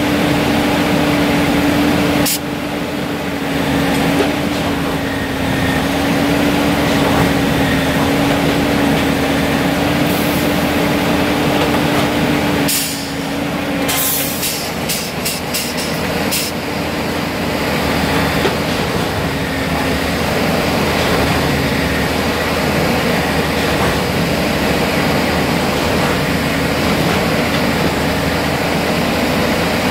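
Plasser & Theurer heavy track maintenance machine working on a railway switch: a steady engine drone with a held tone, broken by a cluster of short, sharp noises about halfway through.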